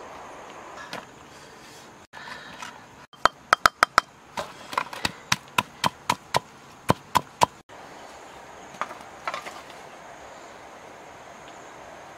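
Stone pestle pounding salt in a stone mortar: a quick run of four sharp knocks, then about a dozen more at roughly three a second, stopping abruptly.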